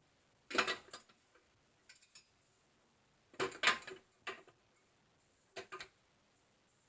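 Metal bike parts clinking and rattling in short bursts as they are handled, four or five times, with the loudest clatter about three and a half seconds in.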